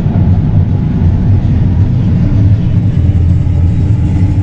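A vehicle engine running steadily: an even, low drone with no change in pitch.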